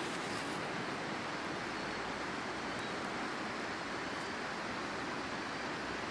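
River water rushing past, a steady, even noise.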